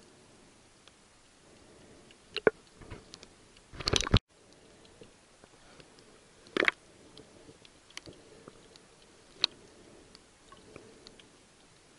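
Muffled underwater sound: scattered sharp clicks and crackles, with louder knocks about two and a half, four and six and a half seconds in.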